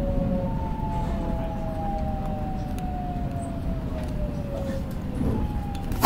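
Seoul Metro Line 4 subway train slowing as it comes into a station, its traction motor whine falling slowly in pitch over a steady low rumble.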